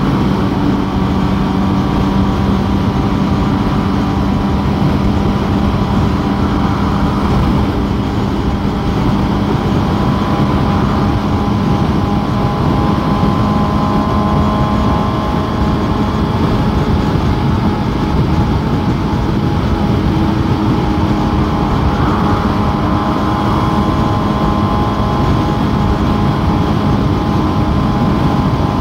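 Suzuki GSX-S750's inline-four engine running at a steady highway cruise, with heavy wind rush over the rider.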